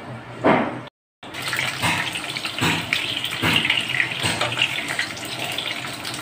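Potato chunks sizzling in hot mustard oil in a non-stick kadai, stirred with a wooden spatula that scrapes against the pan. The sound cuts out briefly about a second in.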